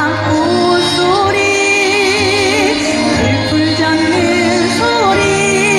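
A female Korean traditional singer (sorikkun) sings long held notes with a wide vibrato over instrumental accompaniment with a steady bass, amplified through PA speakers.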